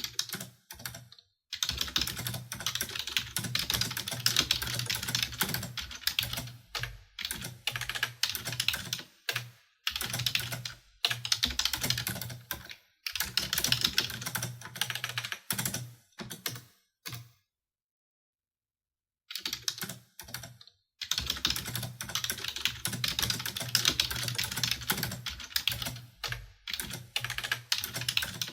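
Typing on a computer keyboard: dense runs of key clicks in bursts of a few seconds, broken by short pauses and a silent gap of about two seconds past the middle.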